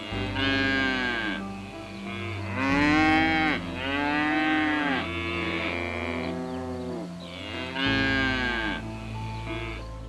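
Cow mooing repeatedly: several long, drawn-out moos, each rising and then falling in pitch.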